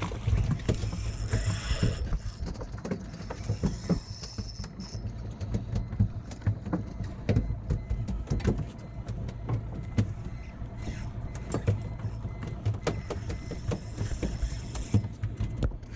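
Knocks and clicks of rod, reel and gear against a small fibreglass boat's hull while a hooked dorado is fought and reeled in on a spinning rod, over a low steady rumble.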